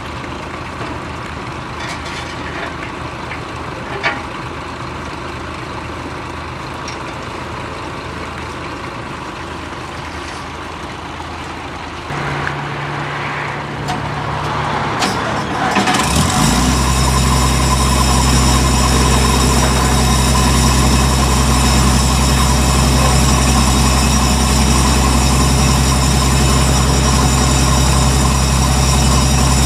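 A tracked combine harvester's diesel engine starting: over a low background engine hum, a new low tone comes in about twelve seconds in, and some four seconds later the engine catches and runs loud and steady at an even speed, with a high whine on top.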